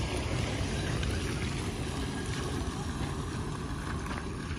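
Wind buffeting the microphone: a steady, fluttering low rumble with a fainter hiss above it.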